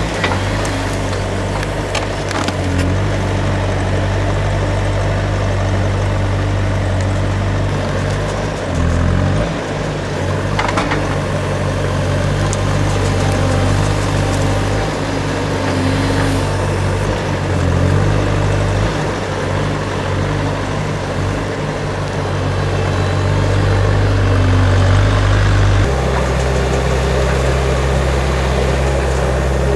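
Skid steer engine running under load while the machine works logs, its pitch dipping and rising a few times as it revs. Near the end the engine note drops lower and settles.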